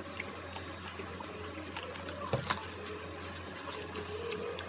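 Eating sounds: a sip of milk tea through a straw and chewing on a mozzarella stick, with scattered small wet mouth clicks, a sharper pair about two and a half seconds in. A steady low hum runs underneath.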